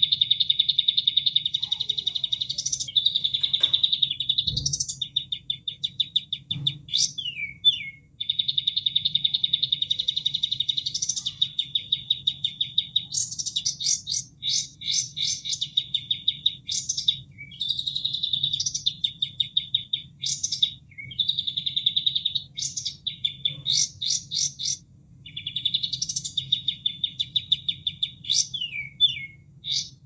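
Recorded song of a kapas tembak, played as a masteran for training caged songbirds. Long, fast rattling trills alternate with quick rising whistles, phrase after phrase with brief gaps.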